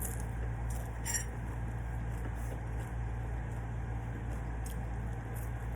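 Eating utensils clinking lightly against dishes: a few short soft clicks and one ringing clink about a second in, over a steady low hum.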